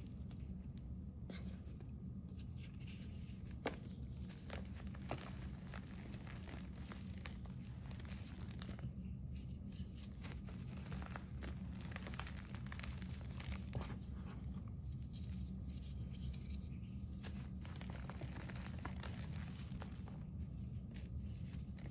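Hands squeezing and crumbling green-tinted gym chalk, powder and soft clumps: dry crunching and crackling with sharp little snaps, easing off briefly a few times between handfuls.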